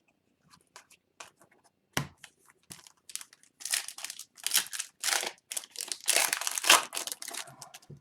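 Foil wrapper of a hockey card pack being torn open and crinkled. There is a single thump about two seconds in, then a few seconds of dense crinkling.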